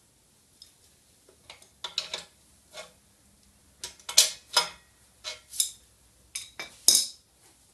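Irregular metal clanks and clicks, a dozen or so, as a Pro-Cut VBG 620 on-car brake lathe is rolled over on its pivot on a steel stand and settled in place. The loudest knocks come about four seconds in and near the end.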